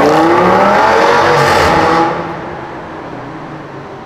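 Audi S8's 5.2-litre V10 engine accelerating hard away in a tunnel, its pitch rising as it revs up. About two seconds in the sound drops off sharply and then fades as the car recedes.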